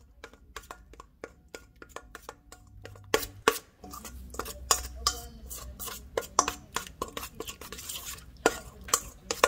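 Metal spoon stirring a thick yogurt-and-spice marinade in a stainless steel bowl, clinking and scraping against the bowl. The strokes are light and sparse at first, then louder and quicker from about three seconds in.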